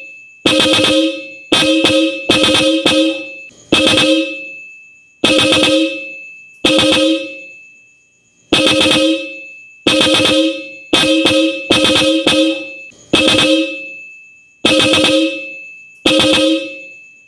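Hella Supertone twin-trumpet electric car horn sounded in about fifteen short, loud honks at an uneven pace, some in quick doubles. Each honk is a two-note chord from the low- and high-tone horns, starting sharply and dying away.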